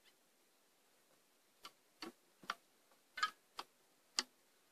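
A series of about seven sharp clicks and light knocks at uneven spacing, the loudest a little past three seconds in and near the end, over near silence.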